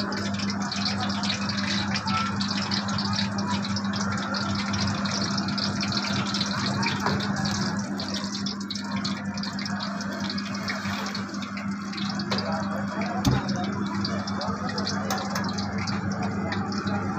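Batter-coated green chillies (hari mirch bhajiya) deep-frying in a kadai of hot oil: a steady sizzle over a low, constant hum.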